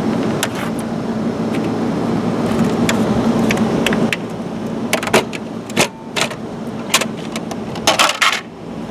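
A steady hum for about four seconds, then a series of sharp clicks and clatters as plastic trim parts under a VW Jetta's dashboard are handled and pulled off.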